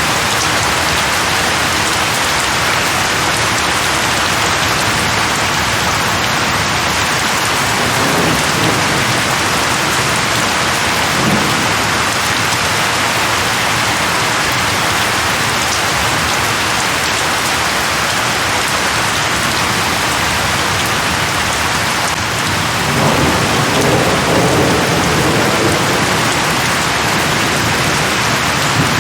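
Steady rain falling on leaves, with distant thunder rumbling low a few times, most strongly about two-thirds of the way through.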